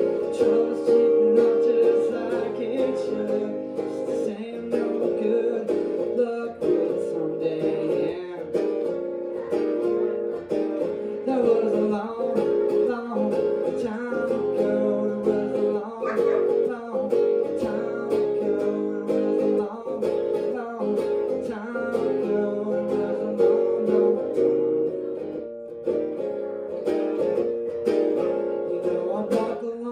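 Acoustic guitar strummed steadily in a live solo performance, with a man singing along in parts; the playing dies away right at the end.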